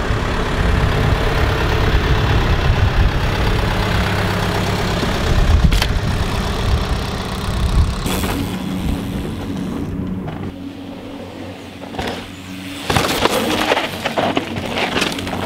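Downhill mountain bike ridden hard on a rough dirt track: a continuous rush of tyres scrubbing and skidding over dirt and rock for the first half, then broken-up rattles and sharp knocks from the bike over rough ground around two-thirds of the way through.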